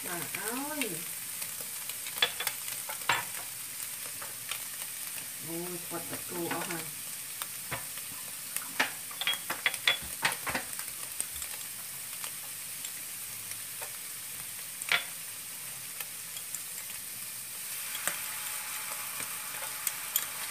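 Fried rice with egg and meat sizzling steadily in a non-stick frying pan, with scattered sharp clicks and taps of kitchen utensils, a cluster of them about halfway through.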